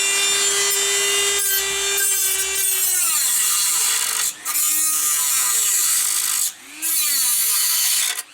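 Dremel rotary tool running at a steady high whine, then cutting metal: its pitch sags and recovers again and again as the disc bites under load. It stops briefly twice, about four and six and a half seconds in.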